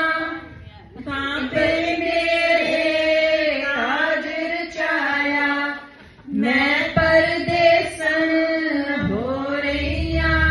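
Women singing a ladies sangeet folk song in long held phrases into microphones, with a dholak drum played under the voices. The singing breaks off briefly about half a second in and again about six seconds in before the next phrase.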